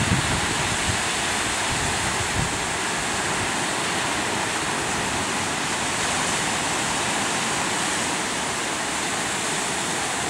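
Steady rush of ocean surf breaking on lava rocks at the shoreline, mixed with wind on the microphone, which gusts a few times in the first second or so.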